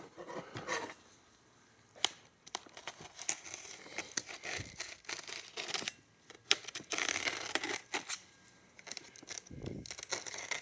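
Packaging being handled and pulled open: irregular crinkling and tearing with scattered clicks and taps, busiest in the second half.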